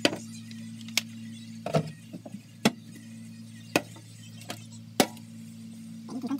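Oiled frying pan heating on an electric cooktop: a steady low hum with sharp ticks about once a second.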